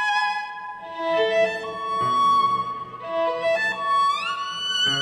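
Semi-acoustic violin playing held, bowed notes over a backing track, sliding up to a higher note about four seconds in.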